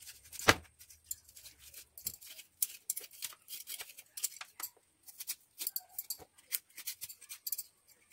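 A knife paring and slicing pieces off a firm vegetable held in the hand: a quick, irregular run of short crisp cuts and scrapes, with one stronger cut about half a second in.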